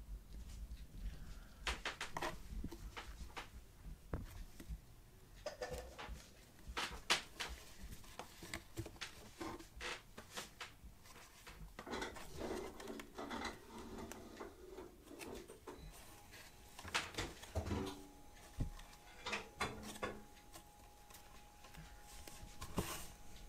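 Kittens scrambling and clawing in a cardboard box: irregular scratches, scrapes and light knocks of paws and claws on cardboard.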